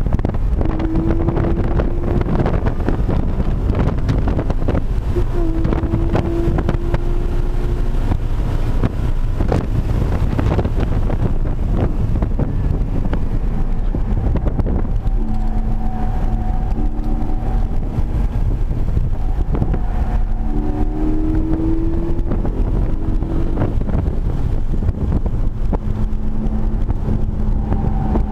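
Porsche 718 Cayman GT4's flat-six engine at speed on track, heard from inside the cabin under heavy road and wind noise. The engine note rises in pitch several times as the car accelerates.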